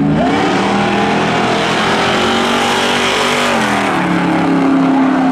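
Two cars racing side by side with their engines at full throttle. The engine note climbs sharply just after the start, holds high, then drops about four seconds in.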